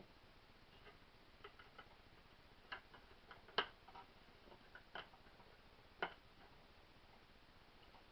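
Faint, irregular clicks and taps of small metal air-pistol parts and tools being handled during reassembly of a Winchester 1977XS pistol, about seven sharp ticks spread unevenly, the loudest a little past the middle.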